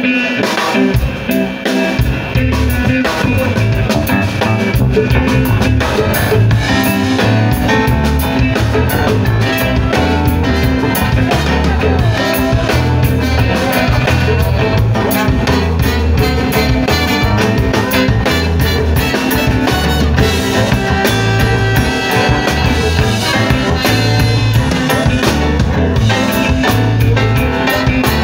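Live band playing an instrumental intro: electric bass and drum kit with percussion, electric guitar and keyboard, the bass line coming in about two seconds in.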